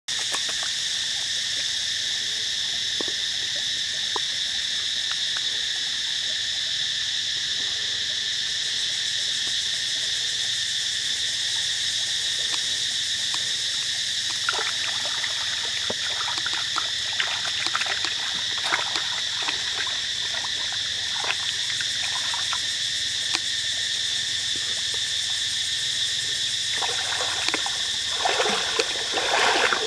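Steady high-pitched drone of forest insects that does not change. From about halfway through come small splashes and drips of hands working in shallow stream water, and near the end louder sloshing of someone wading.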